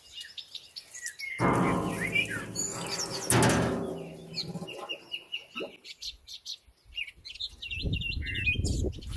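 Water sloshing in a stainless steel tub as a diesel particulate filter is lowered in and submerged, loudest a second or two in and again near the end, with small birds chirping throughout.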